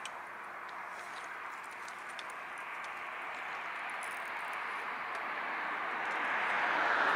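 A vehicle's steady running noise, growing gradually louder as it approaches, with a few faint ticks.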